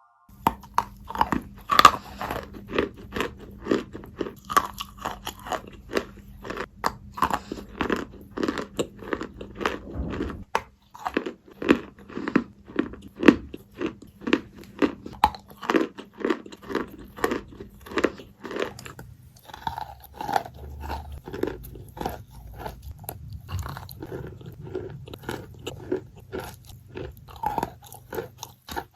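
Close-miked wet, soft crunching of chalk, a quick train of short crunches at about two a second, over a faint steady low hum.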